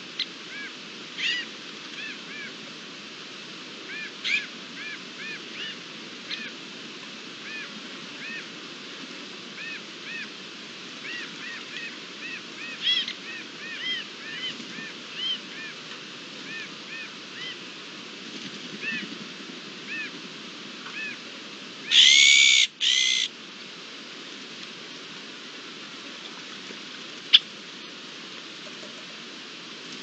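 Iberian azure-winged magpies calling: many short calls that rise and fall, one every second or so, then a loud, harsh call in two parts nearly three-quarters of the way through. A single sharp tick near the end, over a steady hiss.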